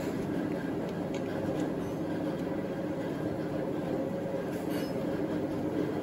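Steady machinery hum holding a few constant tones, with a few faint clicks as the compression-tester hose is handled.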